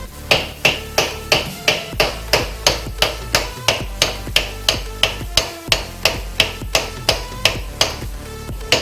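Hammer blows on metal in a fast, even rhythm of about three strikes a second, each with a short ring, as a stuck suspension part is beaten on.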